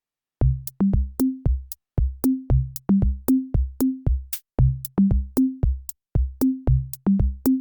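Electronic background music: a drum-machine beat of short, pitched bass-drum hits with sharp high ticks, starting about half a second in.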